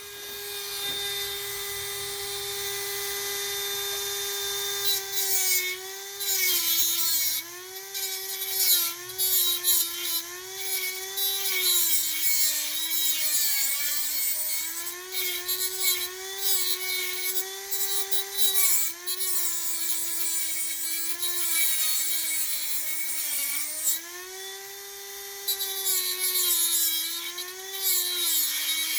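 High-speed rotary cutting tool trimming a steel exhaust stud on the engine head. The motor whines steadily for the first few seconds; from about five seconds in it grinds against the metal with a gritty hiss, and its pitch dips and recovers again and again as it bogs under load.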